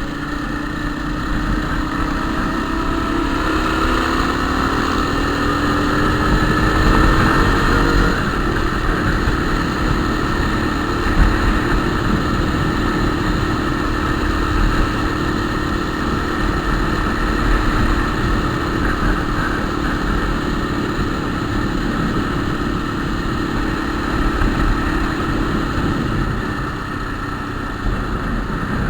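Motorcycle engine running under way, its pitch climbing over the first eight seconds as it speeds up, then holding steady until it fades near the end, over a constant low rumble.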